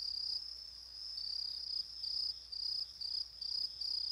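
Night insects chirping: a high, thin trill that about a second in breaks into regular chirps, roughly two or three a second. The characters call them grasshoppers.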